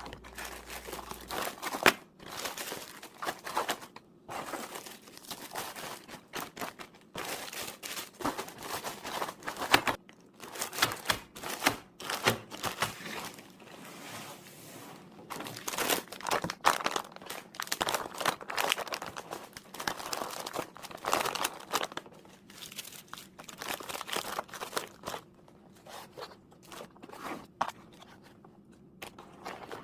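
Crinkling and rustling of packaging or plastic being handled, in irregular bursts, with a couple of sharp knocks about 2 and 10 seconds in.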